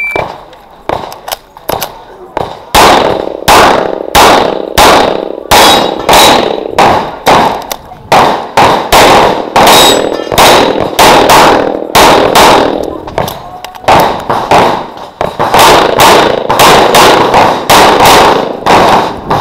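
A shot-timer start beep, then rapid fire from a 9mm CZ Shadow 2 pistol: loud shots, mostly in quick pairs, strung together with short pauses as the shooter moves between targets. A few fainter shots come in the first couple of seconds before the loud string begins.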